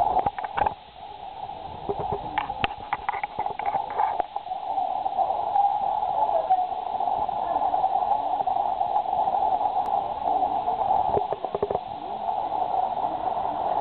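Muffled hubbub of a large indoor arena over a steady mid-pitched hum, with clusters of sharp knocks and clatters about two to four seconds in and again near eleven seconds.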